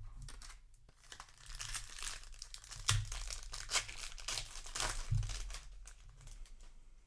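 Plastic foil wrapper of a Magic: The Gathering set booster pack crinkling and tearing as it is handled, with sharp crackles from about a second in until near the end.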